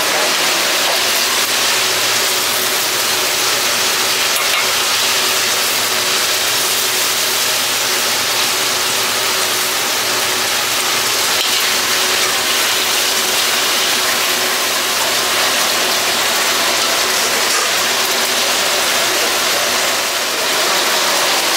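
Tomatoes and onions frying in oil in a black karahi over a gas burner, a steady sizzle under a constant mechanical hum.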